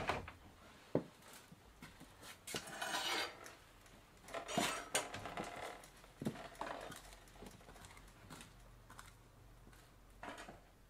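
Scattered light clicks and clinks of small hard objects being handled, with a brief rattle about two and a half seconds in.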